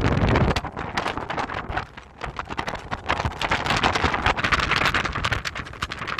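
Sea breeze buffeting the microphone: a heavy low rumble of wind that drops away about half a second in, then a rapid, irregular crackling and rustling.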